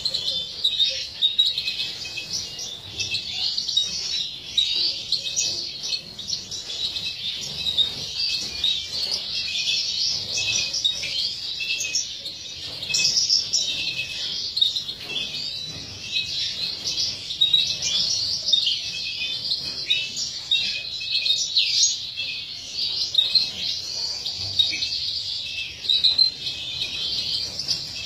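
European goldfinches twittering and singing without a break: a dense, fast run of bright chirps and liquid trills.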